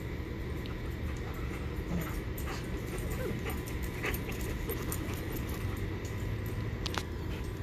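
Young Great Bernese puppies whimpering and yipping faintly now and then, over a low steady rumble.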